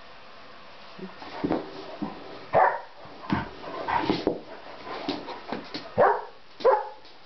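Two dogs play-fighting: a run of short barks and yips mixed with whining, the loudest barks about two and a half seconds in and twice near the end.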